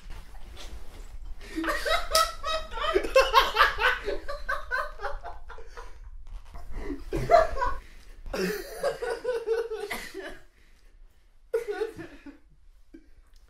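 Two men laughing hard in fits of belly laughter, in three waves, the last a short burst near the end as it dies down.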